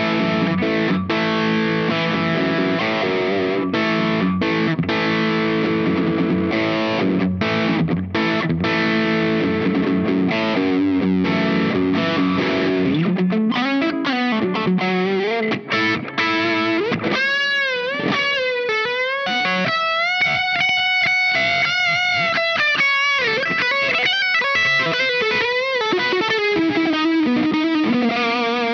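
Electric guitar played through the Caline Key West pedal's Zendrive-style overdrive. About the first half is dense overdriven chords with short breaks. From about halfway on it is single-note lead lines with pitch bends and vibrato.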